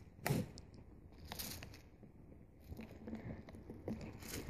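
Handling noise from a Bannatyne bagpipe moisture-control system, its canister and hoses being fitted together by hand: a few soft clicks and rustles, the loudest a knock about a quarter-second in.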